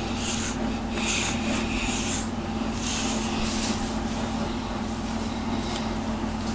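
A deshedding brush drawn again and again through a cat's thick coat, each stroke a short scratchy rub as it pulls out loose undercoat. A steady low hum runs underneath.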